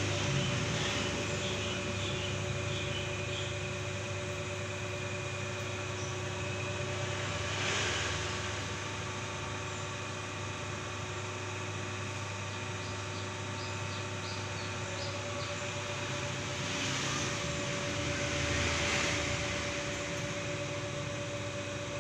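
Pipe and hollow-section roll bending machine running under its motor, a steady hum with a fixed whine that swells a little twice, on a test run rolling stock into a curve.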